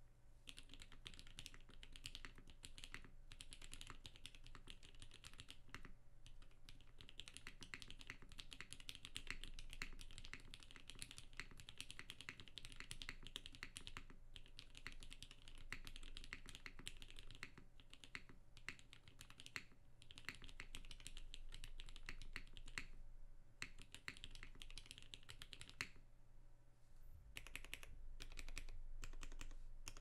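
Continuous typing on a custom mechanical keyboard with lubed 55g vintage Cherry MX Black linear switches, a carbon-fibre half plate and GMK ABS keycaps: a steady stream of key clacks with brief pauses every few seconds. A faint low hum sits underneath.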